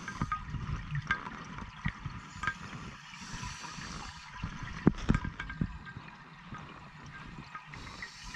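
Scuba diver breathing underwater through a regulator: gurgling exhaust bubbles, a hissing inhalation around three seconds in and another near the end, with scattered clicks and one louder knock about five seconds in.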